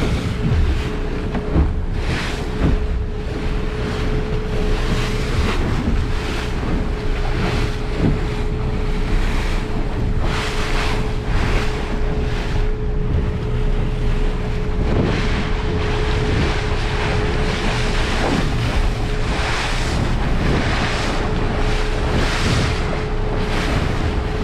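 Stabicraft 2050 Supercab boat running at slow cruise through choppy water: a steady engine drone with a constant thin whine, water splashing against the hull, and wind buffeting the microphone in gusts.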